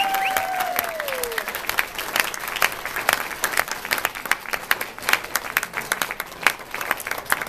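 Audience applauding at the end of a song, with the singers' last held note trailing down and off about a second in.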